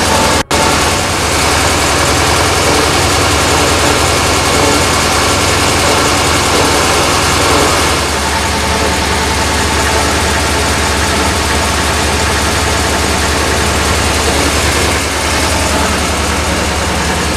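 Deutz OMZ 117 narrow-gauge diesel locomotive's single-cylinder engine running steadily under way, heard from inside its cab. The engine note steps down a little about halfway through.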